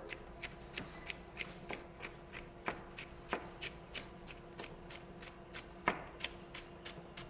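Knife julienning red bell pepper on a cutting board: quick, even strokes at about four a second, a few of them louder.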